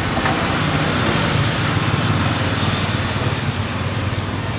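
Sesame-coated dough cakes sizzling in deep hot oil, with a small engine humming steadily underneath.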